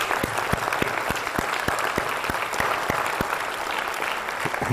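Large audience applauding, with a steady run of louder, evenly spaced claps, about three a second, standing out from the crowd. The applause eases slightly near the end.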